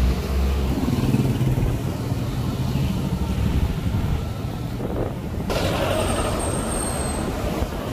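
Road traffic heard from a scooter riding in slow traffic behind a truck: engines running with a steady low rumble and road noise. The noise gets broader and brighter about five and a half seconds in.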